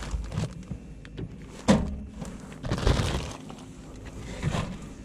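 Handling an Engel portable fridge-freezer in the back of a car: several sharp knocks from its lid and the surrounding gear, the loudest a little under two seconds in, with a plastic bag of fish fillets rustling as it goes in.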